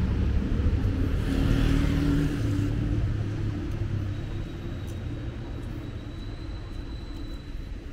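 A motor vehicle passing on a city street: engine rumble with a hiss of tyres, loudest in the first three seconds, then dying down to a steadier background traffic rumble.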